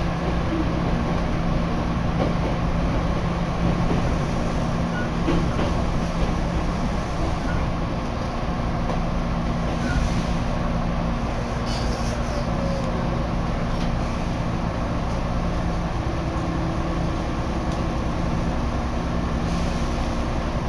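Running noise heard from inside a Hankyu Kyoto Line train carriage as it pulls into the station: a steady rumble with a low, even hum and a few faint ticks.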